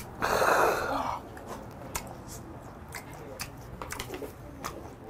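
A man lets out a loud breathy exhale just after a shot of soju. Quiet chewing with scattered small clicks follows.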